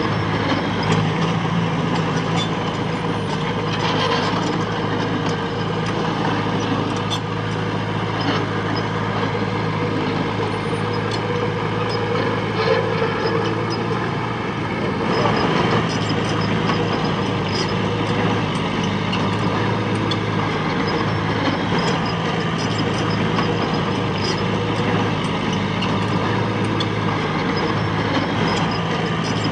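Diesel engine of heavy earthmoving machinery running steadily, with scattered metallic clanks and rattles. The noise grows fuller about halfway through, as if the machine is put under more load.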